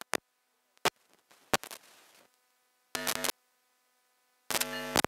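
Sound cutting in and out: mostly dead silence, broken by a few single sharp clicks in the first two seconds and two brief bursts of sound holding steady tones, about three seconds in and again near the end.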